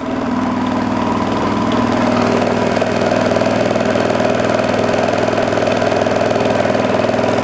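Bedini SG pulse motor's magnet wheel spinning past its drive coils: a steady whirring hum with several held tones, growing louder over the first couple of seconds and then running evenly.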